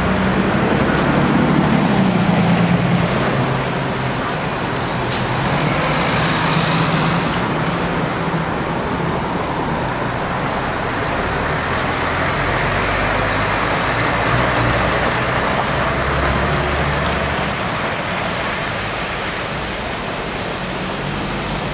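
Mercedes-Benz articulated tanker lorry's diesel engine running at low revs as it waits at a junction and moves off, with passing car traffic and tyre noise on a wet road.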